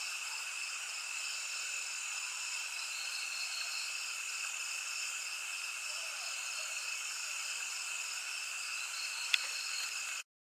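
A steady high-pitched chorus of insects droning, with a rapid pulsing trill woven through it. A single sharp click comes near the end, and then the sound cuts off abruptly.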